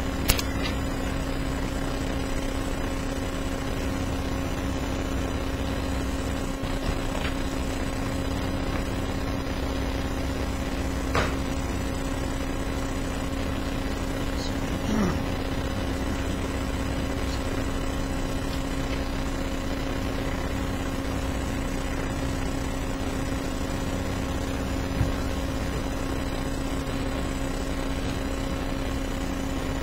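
Steady room hum from the courtroom's microphone feed, with a few brief clicks and knocks. One comes just after the start, one near the middle, a short creak-like sound soon after, and one near the end.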